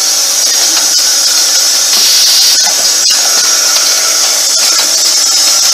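Vibratory bowl feeder running, a dense steady hissing rattle of small metal rivets vibrating around the bowl, with a faint low hum and a few sharp clicks from the machine.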